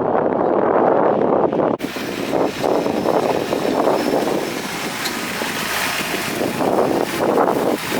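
Kubota diesel tractor running while pulling a hay tedder, with wind rushing over the microphone. About two seconds in, the sound abruptly turns brighter and hissier.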